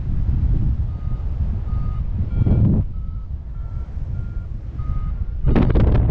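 A series of about seven short beeps, roughly one every two-thirds of a second, over heavy wind noise on the microphone. Louder gusts of wind buffet the microphone about two and a half seconds in and again near the end.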